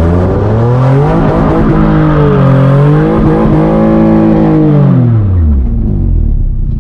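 Nissan 350Z's 3.5-litre V6 revving hard as the rear tyres break loose on a wet road: the pitch climbs over the first second or so, holds high and wavers, then falls away about five seconds in.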